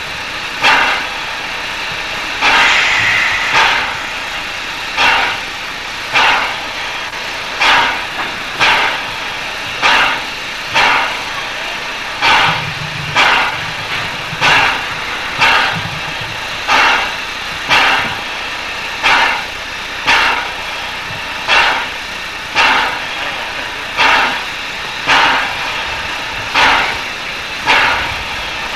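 Steam locomotive standing with its air pump panting, sharp puffs of steam about once a second over a constant hiss.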